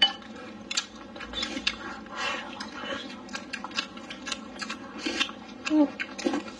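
A person chewing a mouthful of braised pork belly, potato and rice with the mouth close to the microphone: irregular wet mouth clicks and smacks, several a second.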